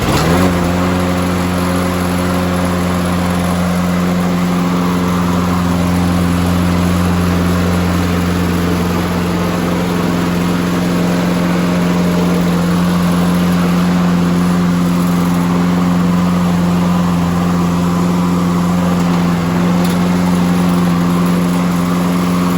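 Toro 20331 walk-behind mower's single-cylinder engine catching on a pull start, with its auto choke, and then running steadily at an even speed.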